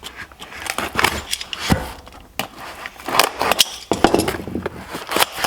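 Cardboard box being opened and unpacked by hand, with loose metal hardware and parts clinking and rattling and a few sharp knocks.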